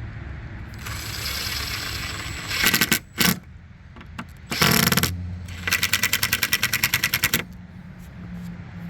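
Cordless drill/driver driving hinge screws in short bursts, its clutch ratcheting in rapid even clicks, about a dozen a second, as the screws seat.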